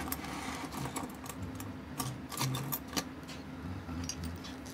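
Irregular light clicks and ticks from small metal parts being handled: a watch case and fine watchmaker's tools, as the case pushers are being fitted.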